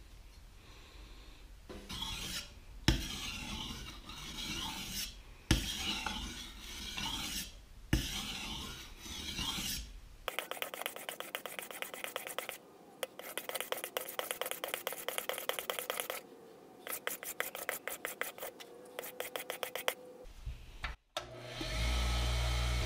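Steel cleaver blade sharpened by hand on a sharpening stone: rapid, rhythmic back-and-forth grinding strokes, several a second, in short runs. Before the stone work there is rough rubbing with a few sharp knocks. Near the end a bench buffer motor starts and runs with a steady hum.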